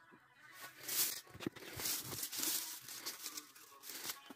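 Rustling of tomato vines and leaves as ripe tomatoes are pulled off by hand, in irregular short bursts.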